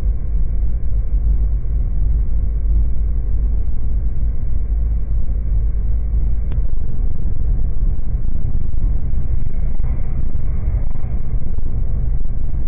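Steady low rumble of a car driving, road and engine noise heard from inside the cabin, with one faint click about halfway through.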